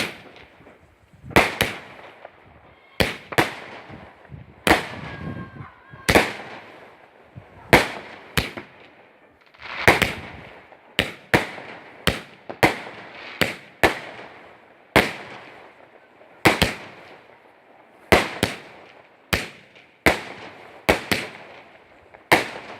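Fireworks display: a steady series of aerial shell bursts, a loud sharp bang every second or so, each trailing off quickly.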